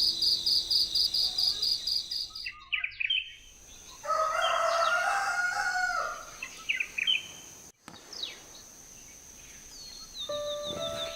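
A rooster crows once, a call of about two seconds, among short scattered bird chirps. An insect's fast rhythmic chirping over steady tones fills the opening two seconds, and music with a bird's trill comes in near the end.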